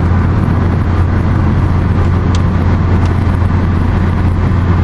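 Steady road noise inside a car cruising at highway speed: tyre and engine drone with a strong low hum.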